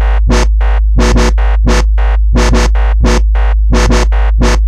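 Electronic music track: a constant heavy bass under short synth stabs that repeat several times a second, often in pairs.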